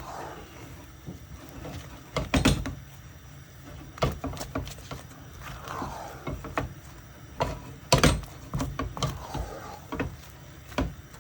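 A wooden stirring stick knocking and scraping against a pot while thick cocoyam paste is stirred, with irregular knocks every second or so.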